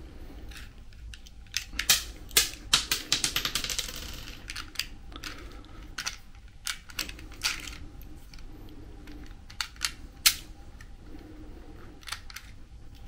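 Plastic dummy cartridges being pressed one by one into the spring-loaded magazine of a toy Glock 21 pistol: a string of sharp plastic clicks, with a quick run of rattling clicks about three seconds in.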